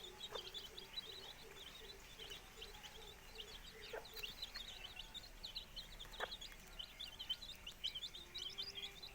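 A brood of young chicks peeping continuously in quick, high, falling chirps. Under them in the first few seconds a mother hen clucks low and rapidly. Three faint sharp taps are heard along the way.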